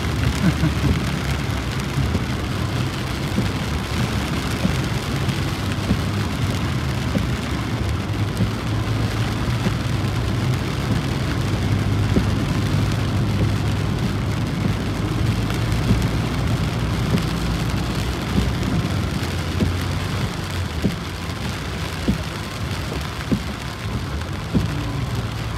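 Heavy rain falling hard on a car's roof and windshield, heard from inside the cabin as a dense, steady patter. A steady low engine hum runs underneath.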